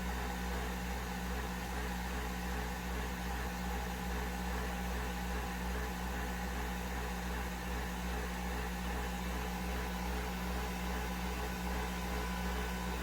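Nespresso VertuoPlus coffee machine running through a brew with a steady mechanical hum, a low drone carrying a few steady higher tones.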